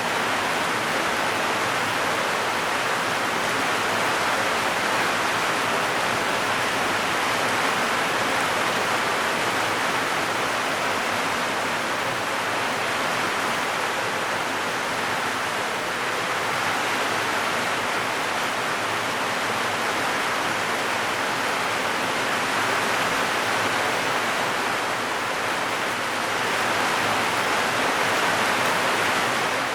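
Heavy rain drumming steadily on a zinc metal roof, a dense, even hiss with no thunder audible over it. It swells slightly near the end.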